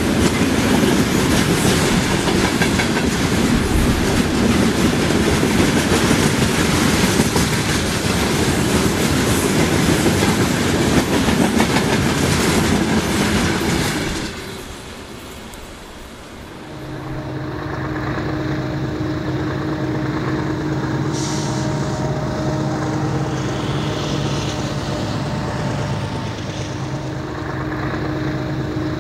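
HO-scale model freight train rolling close past on the layout track, a dense steady clatter of wheels on the rails. About halfway through it falls away, and a quieter steady hum with a few held tones follows.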